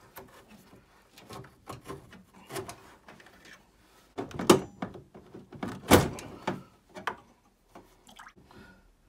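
Clicks and knocks of copper pipework and its retaining clips being worked loose inside a Baxi 600 combi boiler, with two louder knocks about halfway through, a second and a half apart.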